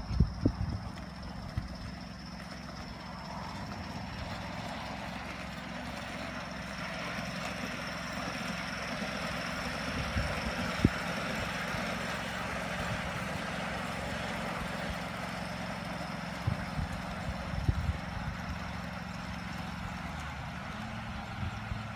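Live steam model locomotive running on the track: a steady low rumble with a hiss that swells and fades over several seconds, and a few sharp clicks.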